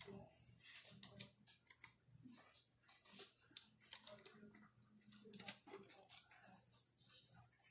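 Faint, irregular clicking of a computer keyboard being typed on, over a low steady hum.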